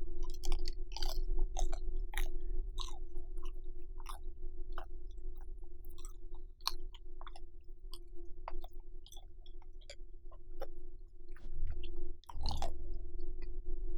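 Close-miked chewing of a last mouthful from a bacon-wrapped rice cake meal, with irregular wet mouth smacks and clicks. A steady low hum runs underneath, and there is a louder, fuller sound about twelve seconds in.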